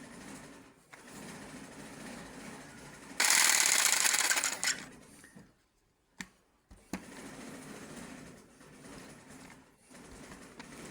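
A small motorised woodworking tool running with a rapid mechanical rattle, with a much louder burst of cutting for about a second and a half about three seconds in. It then drops away briefly with two sharp clicks before running again.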